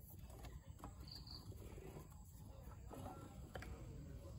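Near silence: faint outdoor background with a few soft knocks as a bamboo cup is pressed and clamped between the wooden jaws of a bench vise.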